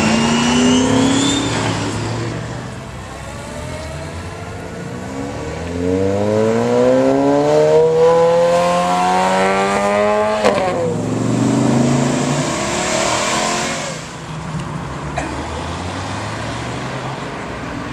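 Sports car engine accelerating hard: its pitch climbs steadily for several seconds, drops sharply at an upshift, then climbs again through the next gear before fading as the car pulls away.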